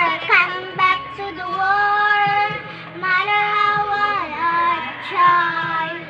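A young girl singing long, held notes with her mouth close to the front of a running electric stand fan, in several phrases with short breaks between them.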